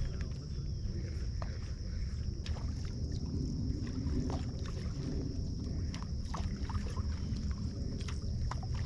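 Waterside ambience: a steady low rumble of wind and lapping water with a constant high hiss, dotted with many faint small clicks.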